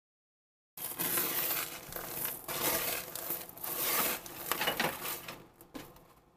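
Silicone spatula stirring and scraping baked granola on a foil-lined baking sheet: irregular crunchy rustling and crinkling. It starts about a second in, after dead silence, and tapers off near the end.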